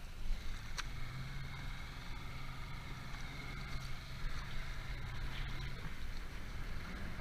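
Boat engine idling with a low, steady hum that stops about six seconds in. A single sharp click comes about a second in.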